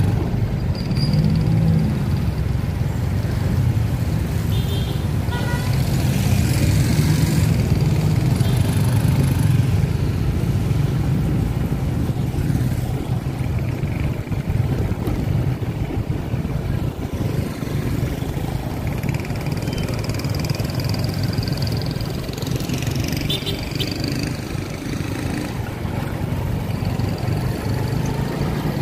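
Motorcycle engine running steadily while riding at an even pace, with road noise.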